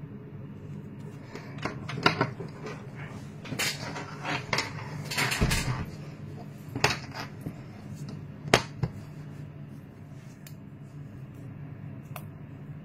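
Irregular clicks, taps and a few sharper knocks of a smart watch being handled: its magnetic charging clip put to the back of the watch, then the watch fastened onto a wrist. A steady low hum runs underneath.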